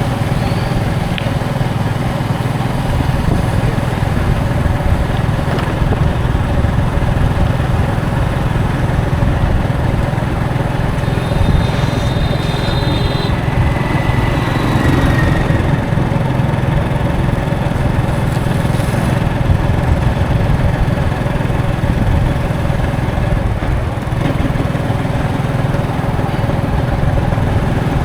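Passenger bus engine running with a steady low drone over road noise. A brief high tone sounds about halfway through.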